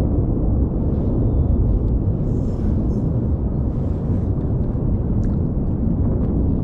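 Wind buffeting the microphone: a loud, steady low rumble, with a few brief faint hisses on top.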